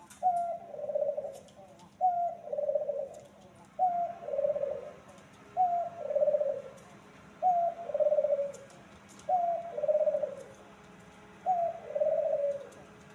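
A dove cooing seven times, about every two seconds. Each call is a short higher note followed by a longer, lower rolling coo.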